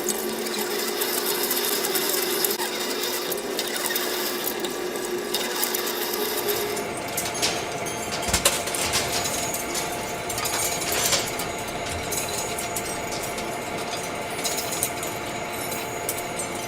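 Metal lathe machining: a machine tool running with a steady whine over a hissing cutting noise, broken by a few sharp clicks. The whine changes pitch about seven seconds in.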